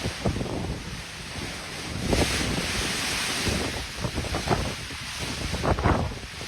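Strong typhoon winds gusting and buffeting the microphone, with a louder rushing gust about two seconds in that lasts over a second.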